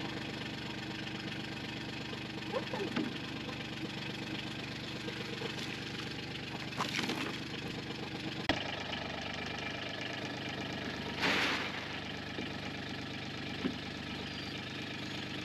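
Engine idling steadily, with a few brief louder sounds over it.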